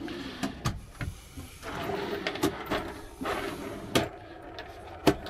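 Wooden drawer on newly fitted ball-bearing drawer slides being pulled open and pushed shut, with a rolling slide noise in the middle and several sharp knocks as it meets its stops, the loudest two near the end.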